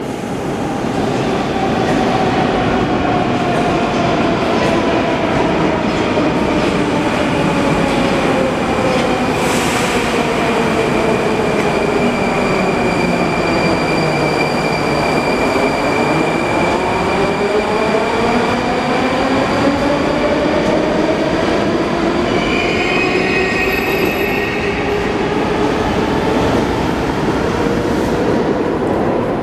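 81-740 Rusich metro train's traction motors whining over the rumble of the wheels, the whine falling steadily in pitch as the train brakes to a stop, then rising again as it accelerates away. A brief cluster of high tones sounds about three-quarters of the way through.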